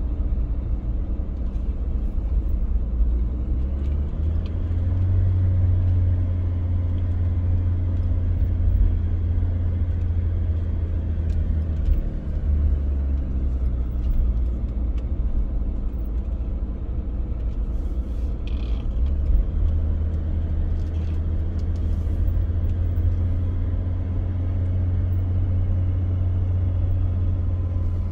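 A steady low rumble, with a few faint ticks about two-thirds of the way through.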